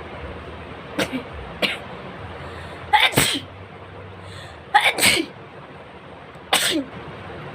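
A person sneezing hard three times in a row, about two seconds apart, after two shorter, sharper sounds. The sneezes are deliberately provoked.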